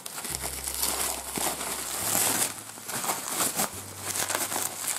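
Bubble wrap crinkling and rustling in uneven handfuls as it is unwound by hand from a package.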